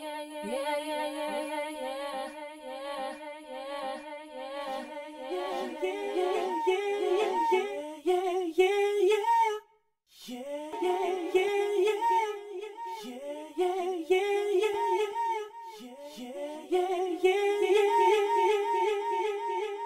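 A sung vocal line run through the PhatNoise Delay plugin, a tape-echo emulation, its repeats stacking up behind the voice. The sound cuts out for a moment about ten seconds in and starts again.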